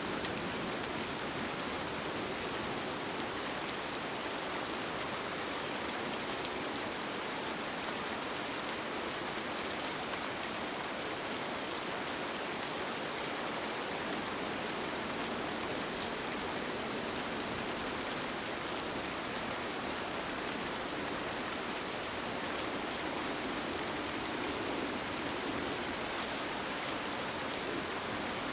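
Steady rain falling on a tent, with a dense patter of small drop hits and no change in strength.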